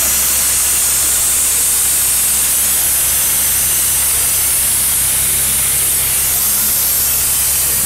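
Vacuum extractor running with a steady hiss and a low hum under it, sucking spent carbon cleaner and loosened carbon deposits out of the engine's combustion chambers into a clear collection canister.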